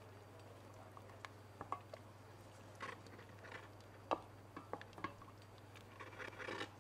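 A wooden spoon stirring thick cheese sauce in a stainless steel saucepan: faint, irregular scrapes and light taps against the pan, over a steady low hum.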